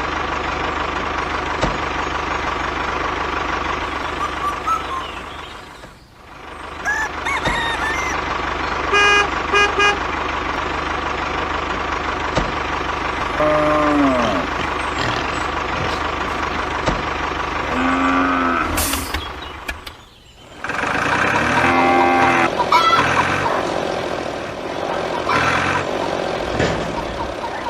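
Truck engine running steadily, broken off twice, with a few short beeps about nine to ten seconds in.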